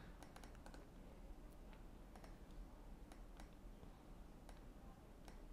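Near silence: room tone with faint, scattered clicks from working a computer mouse.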